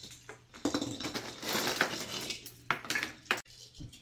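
Christmas ornament baubles clinking and rattling against each other and a plastic storage bin as they are rummaged through by hand, with a few sharp clicks near the end.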